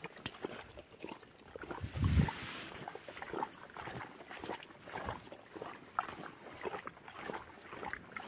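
Footsteps of a person walking on a dry dirt trail, irregular steps about two a second, with a louder low thump about two seconds in.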